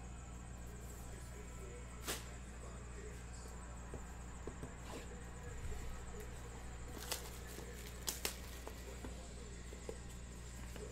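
Hands handling and opening a cardboard trading-card box: a few sharp clicks and snaps, a close pair of them loudest about eight seconds in, over a steady low hum.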